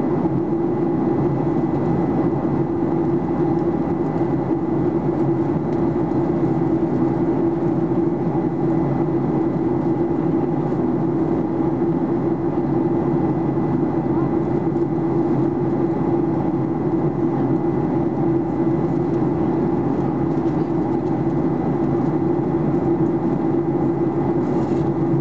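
Steady cabin drone of a Boeing 737-800 in flight, heard inside the cabin over the wing: the CFM56-7B turbofans and airflow make an unbroken low hum, with a thin steady high whine over it.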